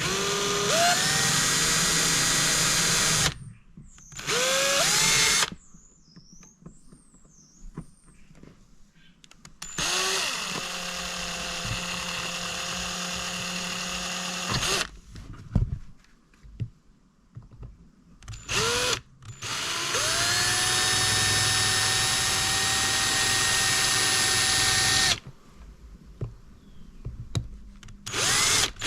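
Electric drill drilling out the rivets of a wiper stalk switch housing, run in several bursts. Each burst starts with a rising whine as the drill spins up, and the longest last about five seconds.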